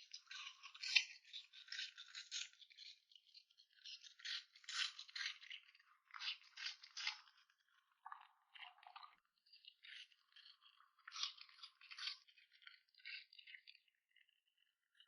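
Dry crunching and rattling in quick clusters of clicks, coming in bursts of a second or two with short gaps between.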